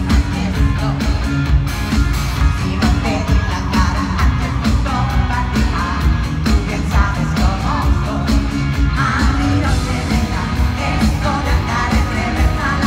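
A woman singing lead over a live band with a steady beat, heard loud from within the concert audience.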